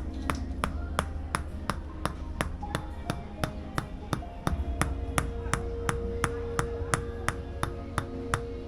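Tok sen wooden mallet striking a wooden wedge on the body in a steady rhythm, about three sharp knocks a second.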